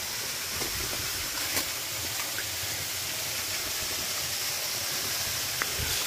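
Steady rushing hiss of a nearby waterfall, with a few faint knocks near the end.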